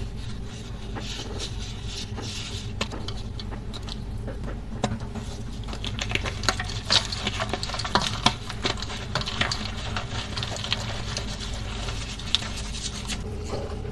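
Crunchy chalk reforms and water crumbles being crushed and crumbled, giving dense, irregular crackling and crunching that is busiest and loudest in the middle. A steady low hum sits underneath.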